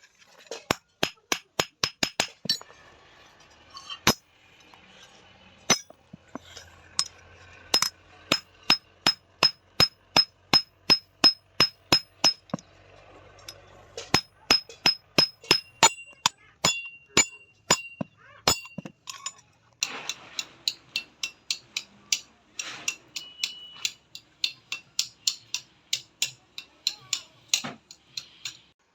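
Blacksmith's hand hammer striking a sheet-iron tawa (flat bread griddle) as it is shaped, with rapid, even blows of about three a second. Each blow gives a short metallic ring, and the runs of blows are broken by a couple of brief pauses.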